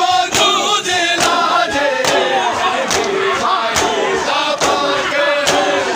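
A crowd of men chanting a mourning lament together, with regular loud slaps of hands striking bare chests in matam, a little under one a second.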